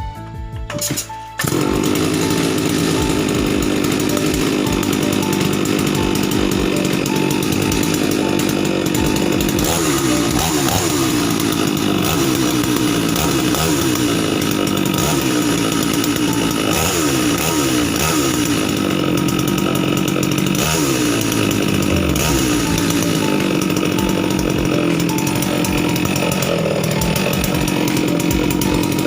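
New Falcon FC 6800 two-stroke chainsaw running, starting abruptly about a second in and then held at high revs. Through the middle the revs repeatedly dip and pick up again, as when a new engine is being run in.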